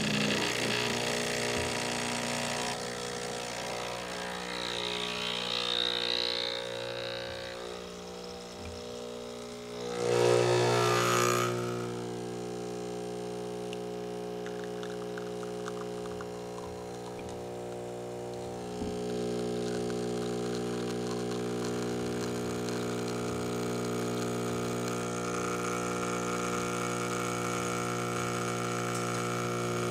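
Breville Barista Express espresso machine's vibratory pump humming steadily as it pulls a shot of espresso. About ten seconds in, it swells to a louder rush for a couple of seconds.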